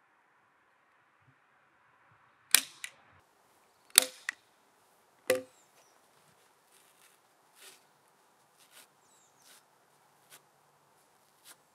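Sharp knocks of a tool striking timber: three loud blows about a second and a half apart, the first two each with a quick lighter second hit, then fainter scattered taps.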